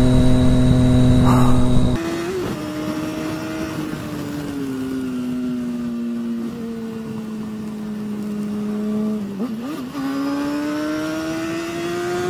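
Motorcycle engines heard from the riders' helmet cameras. First a steady, louder drone for about two seconds. Then, after an abrupt drop in level, a sport bike's engine runs with its pitch sinking slowly, gives a quick rev blip about ten seconds in, and settles into a steady, slightly rising note.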